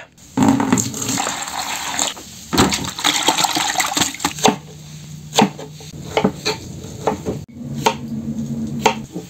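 Lemon halves squeezed by hand over a salad in a plastic cooler box: juice dripping among scattered clicks and knocks of handling. A low steady hum comes in about halfway through.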